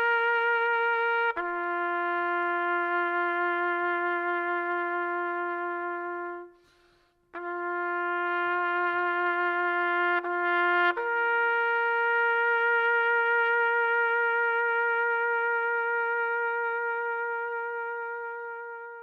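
Slow background music of long held trumpet-like notes, one at a time, with a short break midway and a final long note that fades out near the end.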